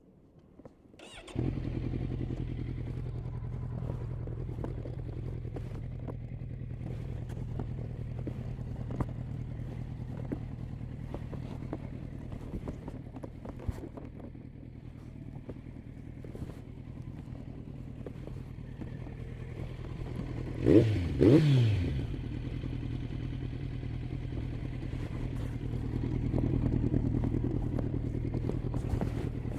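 Kawasaki Z900 inline-four with an SC Project aftermarket exhaust starting up about a second in, then idling steadily. About two-thirds of the way through come two quick throttle blips, the pitch rising and falling; these are the loudest part.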